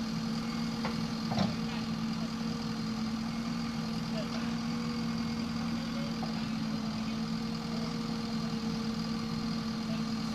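Diesel engine idling steadily, with a single brief knock about a second and a half in.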